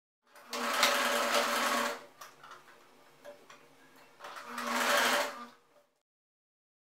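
Electric domestic sewing machine stitching through denim in two short runs. The second run starts about four seconds in, and there are faint handling clicks in the pause between the runs.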